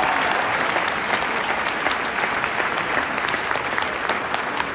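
Crowd of students applauding: dense, steady clapping that tapers off a little.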